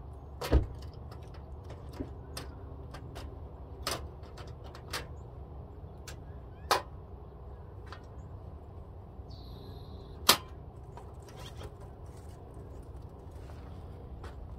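A handful of irregular sharp knocks over a steady low rumble, with the loudest knocks about half a second in, near the middle and about two-thirds of the way through.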